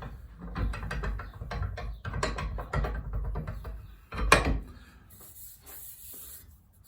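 Bench vise being worked to clamp a small metal car part: a quick run of rattling metal clicks and knocks, then one loud metallic clank about four seconds in.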